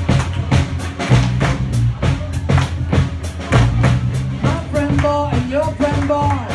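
Live band playing a drum-kit and bass groove with a steady beat. A sustained melodic line comes in over it about five seconds in.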